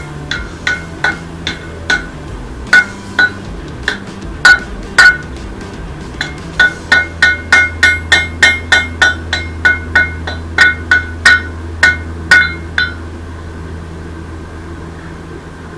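Blacksmith's hammer striking hot rebar on an anvil, each blow ringing. It starts with a few slow, uneven blows, then settles into a steady run of about three blows a second and stops about 13 seconds in.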